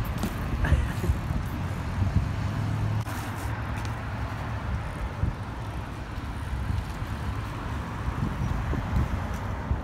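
Steady road traffic noise from passing cars, with a few light clicks.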